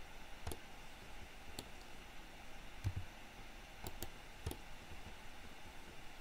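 Scattered clicks of a computer mouse and keyboard keys, about six at uneven intervals, one near the middle with a dull low thud under it.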